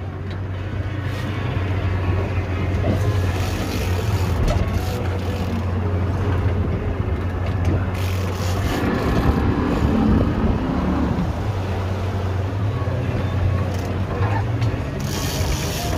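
Boat engine running steadily with a low drone, under a constant rush of wind and water as the boat moves.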